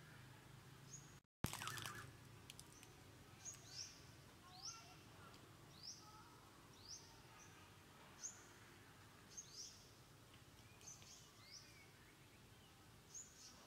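A bird calling over and over in forest: short high notes that sweep downward, roughly one a second, over a faint background hiss. A brief loud burst of noise about a second and a half in is the loudest moment.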